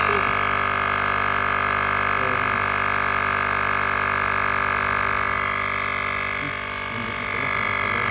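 Xiaomi portable electric tyre inflator running steadily with an even buzzing drone as it pumps up a motorcycle tyre that was low, at about 19 psi.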